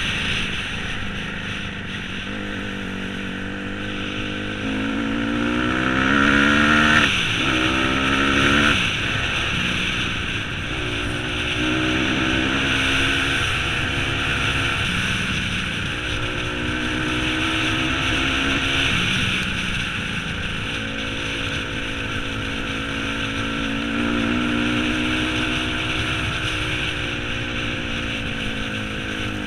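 Dirt bike engine under way, revving up hard twice in quick succession about five to nine seconds in as it accelerates through the gears, then running at a steadier, wavering pitch. A constant rush of wind noise lies underneath.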